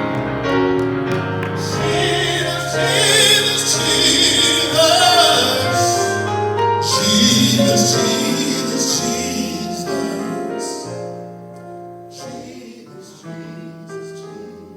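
Gospel singers holding long notes of a slow worship chorus over keyboard chords. The singing dies away over the last few seconds, leaving the keyboard playing more softly.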